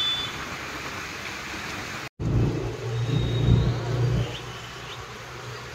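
Motorbike engine running under the rider, with street traffic noise. The sound drops out briefly about two seconds in, then a low engine hum comes up louder and eases off after about four seconds.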